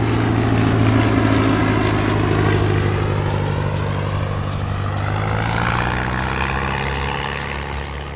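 Single-engine propeller floatplane flying low overhead and passing away behind, its engine and rushing air loudest about a second in and fading near the end, over the steady drone of the boat's twin outboard motors.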